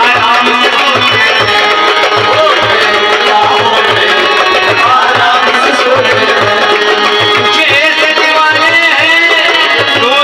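Live harmonium-led ensemble performing a ghazal: harmonium reeds holding the melody over a steady rhythm of hand-drum strokes, with a frame drum and a man's singing voice.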